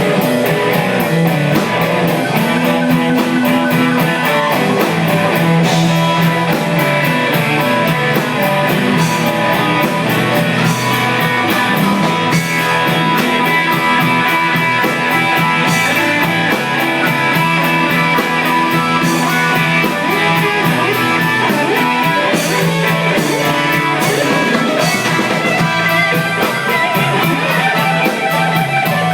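Live blues band playing, with electric guitar over a drum kit.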